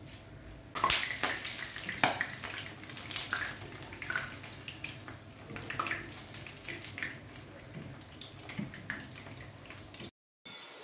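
Samosas shallow-frying in hot oil in a pan, sizzling with many small crackles, while metal tongs turn them. The sound starts about a second in and cuts off suddenly near the end.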